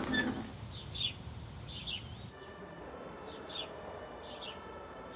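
Small birds chirping: short, high, falling chirps about twice a second over faint outdoor background noise, which drops quieter a little past two seconds in.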